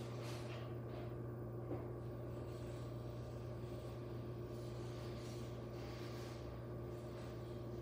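Steady low mechanical hum in a quiet room, with a few faint soft rustles.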